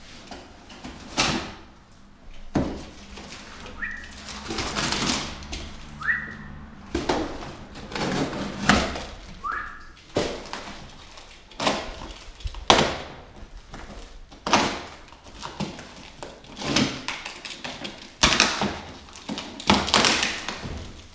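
Cardboard and bubble-wrap packaging torn and pulled apart by hand: repeated ripping and crinkling, with three short rising squeaks in the first half.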